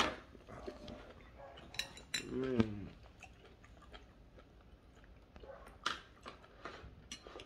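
Someone eating: chewing, with scattered clicks and clinks of cutlery on a plate. A short vocal sound falling in pitch comes about two and a half seconds in.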